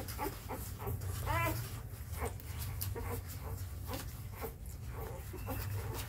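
Newborn Labrador puppies squeaking and whimpering as they jostle to nurse, with one louder rising squeal about a second and a half in, over many short smacking clicks of suckling and a steady low hum.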